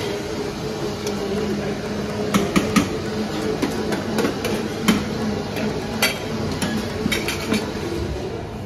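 Metal clinks and clatter of serving spoons and stainless-steel chafing-dish lids at a buffet: a few sharp knocks, three in quick succession about two and a half seconds in, over steady room noise.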